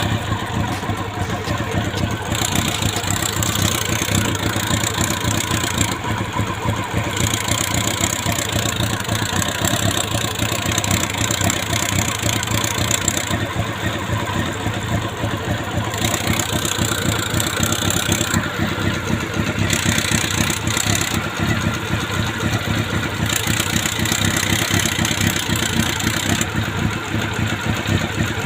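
Honda CB400 motorcycle engine idling steadily. The engine has an intermittent rattle that the owner suspects comes from a clogged oil strainer starving the oil pump, or a slapping, worn cam chain and sprocket.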